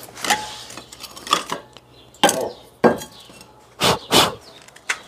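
Plates and cutlery clattering as dishes are gathered and handled: a series of sharp clinks and knocks, about seven, one ringing briefly just after the start.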